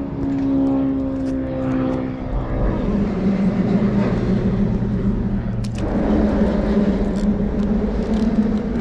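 Steady drone of a passing engine, its pitch dropping and settling into a lower hum about two seconds in, with a couple of sharp clicks about two-thirds of the way through.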